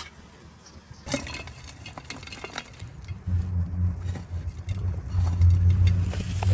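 A metal spade scraping and dumping hot ash and embers onto an upturned metal pot, with scattered clinks and gritty scrapes. From about three seconds in, a steady low rumble of unclear source is the loudest sound.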